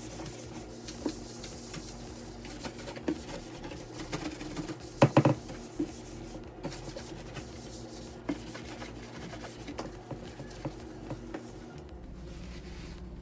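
Rubbing and scrubbing from cleaning a refrigerator, with scattered light clicks and knocks of items being handled. A short cluster of louder knocks comes about five seconds in.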